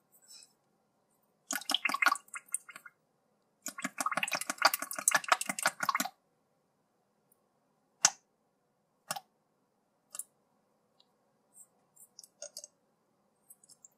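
Slime squelching and crackling as it is squeezed out of a small soft plastic bottle toy, in two wet bursts, the second longer. A couple of sharp clicks follow, then faint ticks.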